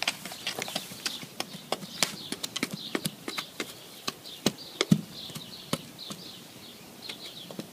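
Garden hoe tapping and scraping the soil in a shallow trench, flattening it with the back of the blade: irregular clicks and knocks, a few a second.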